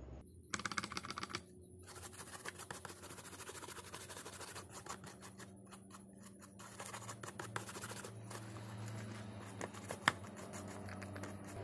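Toothbrush bristles scrubbing a mobile phone circuit board, a fast, scratchy brushing in rapid strokes, with one sharp click about ten seconds in.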